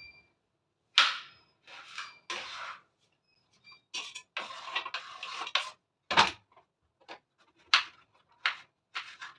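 Household handling sounds: a string of sharp knocks and clatters, with a stretch of scraping and rustling in the middle and a heavier thud just after it.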